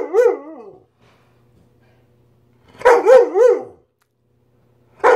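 Weimaraner dog 'talking': warbling howl-barks whose pitch wobbles up and down several times in each call, in bouts about every two and a half seconds. It is begging for more food.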